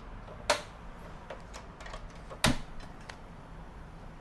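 Gas stove burner being lit: two sharp clicks of the knob and igniter about two seconds apart, the second louder.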